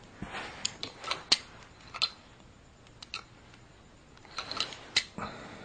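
Hard plastic toy pieces clicking and knocking on a toy train playset as it is handled, in two short bursts of clatter with a pause between.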